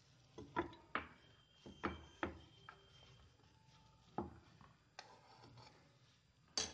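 Metal spoon knocking and scraping against a nonstick frying pan while breaking up a mound of thick cooked chana dal paste: a string of soft, irregular knocks and scrapes.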